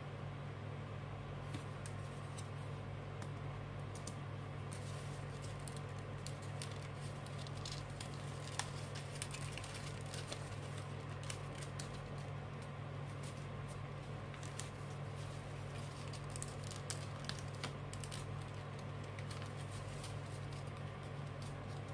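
Sheet of paper rustling and crinkling between the fingers as it is creased and folded into an origami crane, with scattered small crisp clicks, over a steady low hum.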